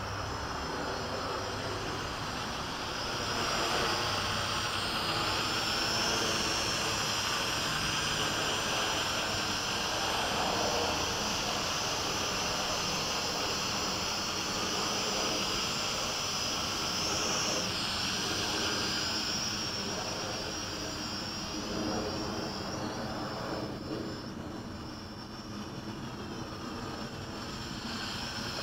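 Hubsan H502E quadcopter's small electric motors and propellers whining in flight. The pitch slides up and down as it manoeuvres, and the sound grows louder about three seconds in.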